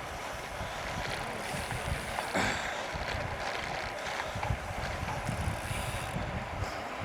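Wind buffeting the microphone over the steady hiss of bicycles rolling along the road, with one brief louder noise about two and a half seconds in.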